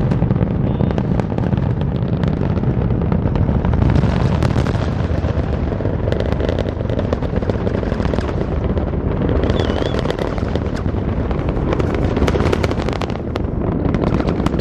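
Falcon Heavy rocket's 27 Merlin engines heard from a distance after liftoff: a loud, continuous deep rumble laced with rapid crackling and popping.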